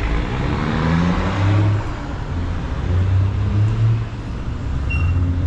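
A motor vehicle engine running close by, its low hum swelling and easing about three times.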